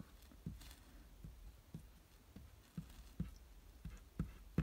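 Glue stick rubbed in short strokes along a black card frame, giving soft, dull taps about twice a second.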